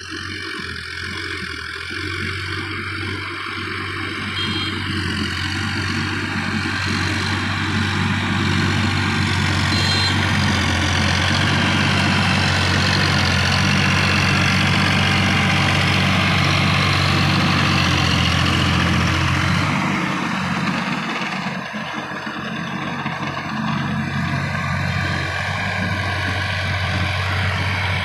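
Sonalika DI 50 RX tractor's diesel engine running steadily under load as it works through a flooded paddy field, growing louder as it comes close past and then fading somewhat as it moves away.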